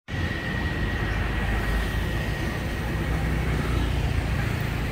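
Steady rumble of street traffic, with a thin high whine over the first few seconds that fades out.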